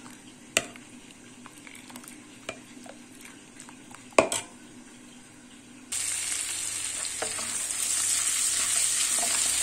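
A metal spoon stirring thick tarhana soup in a stainless steel pot, with a few sharp clinks against the pot. About six seconds in, this cuts to a loud, steady sizzle of rice frying in butter and oil in a pan for pilaf.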